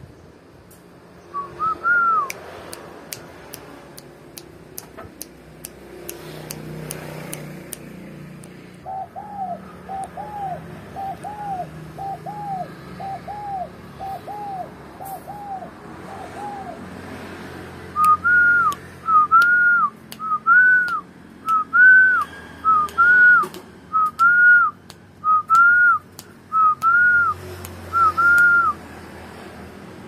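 Clear whistled notes, each rising then falling, repeated about one and a half times a second. A run of lower notes comes in the middle, then a louder run of higher notes.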